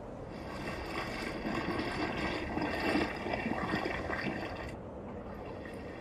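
Hot spring water gurgling and trickling. The sound swells toward the middle, and its hissy upper part cuts off suddenly about three-quarters of the way through.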